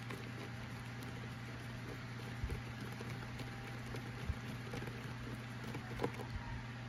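Hand screwdriver backing out the screw of a generator's plastic air-filter cover: a few faint clicks and scrapes, over a steady low hum.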